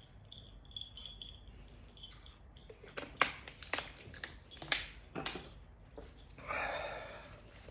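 Close-up sounds of someone eating: five sharp crunching clicks over about two seconds, then a short breathy rush of noise near the end.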